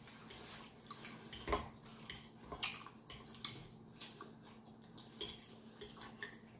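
Close-up eating sounds from a plate of fried chicken: scattered crunchy bites and chewing, with a metal fork clicking against a plate.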